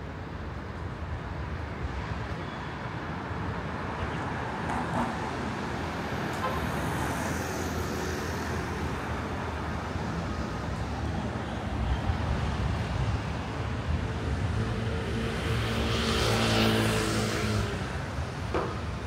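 Road traffic on a city street. About three-quarters of the way through, one motor vehicle passes close, its engine hum and tyre hiss swelling to a peak and then fading.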